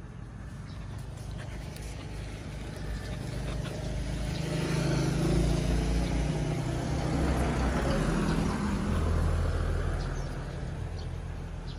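A motor vehicle passing by: its engine and road noise build up over a few seconds, are loudest in the middle, and fade away again near the end.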